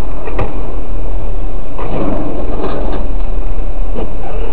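Steady, loud road and engine rumble of a car heard from a dashcam inside the cabin, with a louder noisy stretch and a few sharp knocks about two seconds in.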